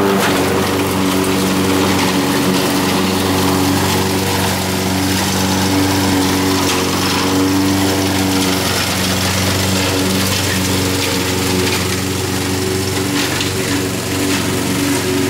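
Honda HR194 push mower's engine running steadily as it cuts grass: a constant engine hum with a stack of steady tones.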